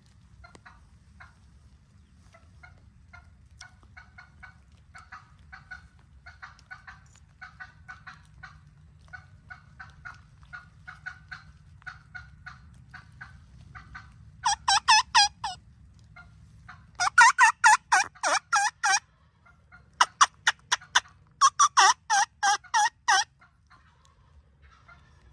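Wild turkeys calling: a faint run of short repeated notes, then, about fourteen seconds in, four loud, close runs of rapid calls, several notes a second.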